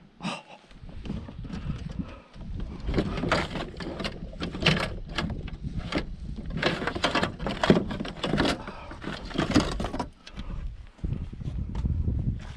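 Irregular knocks, splashes and rustling from handling a freshly caught smallmouth bass and a landing net aboard a plastic fishing kayak, busiest in the middle, over a low rumble of wind on the microphone.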